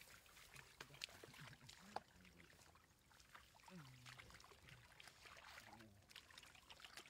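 Faint splashing and sloshing of hands grabbing catfish in shallow, muddy paddy water, with many small, sharp splashes scattered throughout.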